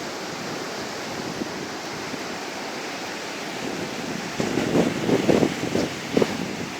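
Sea surf washing ashore under strong wind, the wind blowing on the microphone; gusts hit harder and louder for a couple of seconds in the second half.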